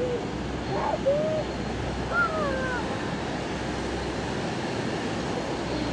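Steady, distant rushing roar of an Avro RJ100's four turbofans as the jet rolls out on the runway after touchdown, mixed with wind on the microphone. A few short gliding calls come over it about one and two seconds in.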